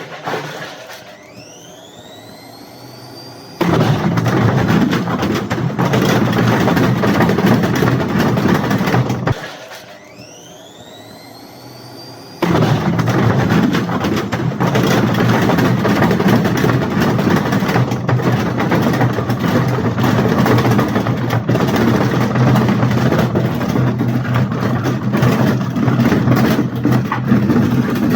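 Hotpoint FMG723 washing machine, being run to destruction: its motor whines rising in pitch as the drum speeds up, then the machine breaks into a loud, rough, sustained running noise. It drops back once, whines up again, and goes on loudly.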